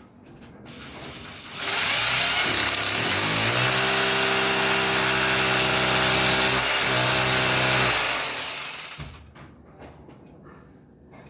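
Electric power drill running for about six seconds: the motor spins up with a rising whine, runs steadily with a brief dip, then stops.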